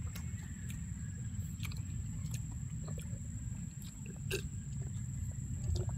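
Chewing and lip-smacking of people eating grilled fish and rice by hand, with small irregular wet clicks over a low steady rumble.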